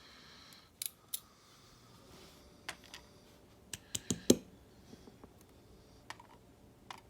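Scattered light clicks and taps of small lock pins and springs being handled, about a dozen in all, the loudest a quick cluster about four seconds in.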